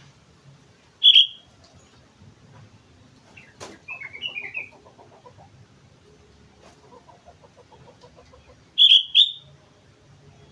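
Sooty-headed bulbul (kutilang) calling: a loud short note about a second in, a softer run of chirps around four seconds, and two loud notes close together near the end, with faint rapid trilling in between.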